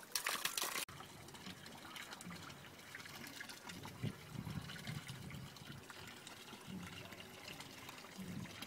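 Water trickling and splashing from a pipe spout into a stone trough. It is louder for the first second, then drops suddenly to a faint, steady trickle.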